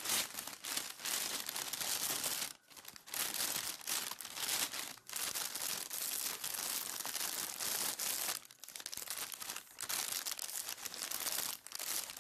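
Plastic film wrapping on a pack being gripped, crinkled and torn open by hand: a series of loud rustles and crackles with short pauses between them.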